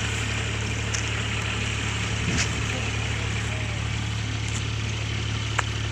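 Kubota DC-35 combine harvester's diesel engine running steadily with a constant low hum, with a few short sharp clicks over it.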